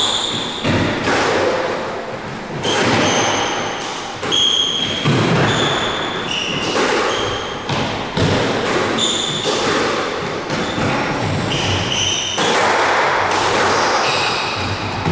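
A squash rally: the ball is struck by rackets and hits the court walls again and again, with athletic shoes squeaking on the wooden court floor in short high squeals.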